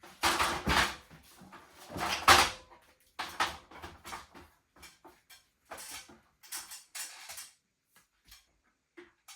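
Irregular rustling, scraping and light knocks of the charging cable and its hanging hardware being handled and adjusted, loudest in two bursts near the start and about two seconds in, then smaller scattered rustles.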